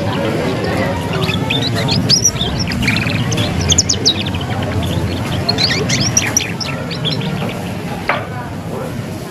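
Young canary singing its unfinished juvenile song: a fast, twittering 'ngeriwik' chatter of quick high chirps in bursts, over a steady low background hum.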